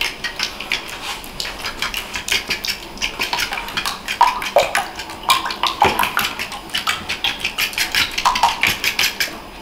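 Metal fork beating eggs in a ceramic bowl, clinking rapidly and steadily against the bowl's sides.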